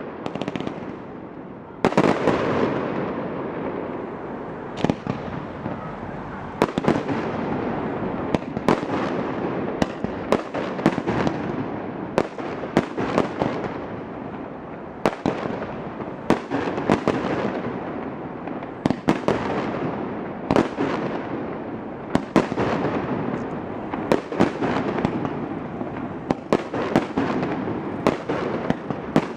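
Fireworks display: aerial shells bursting one after another, a sharp bang every second or so, each followed by a long echoing decay, with crackling between them.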